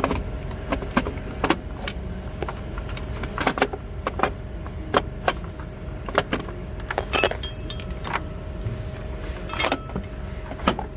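Starter motor being worked out of a 2016 Kia Forte 5 engine bay by hand: irregular metallic clinks and knocks as the metal parts catch and scrape against each other, one or two a second.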